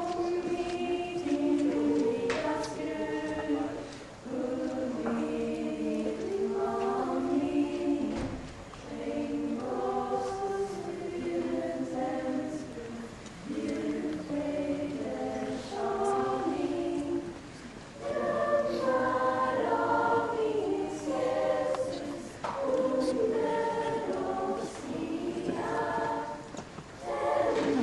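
School music choir singing a Christmas song, in phrases of a few seconds with short breaks for breath between them.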